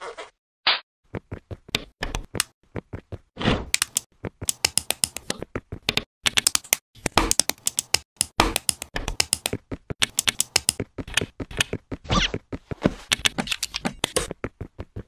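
Plastic LEGO bricks clicking and snapping together in quick, irregular runs of sharp clicks, sparse at first and packed tightly from about four seconds in.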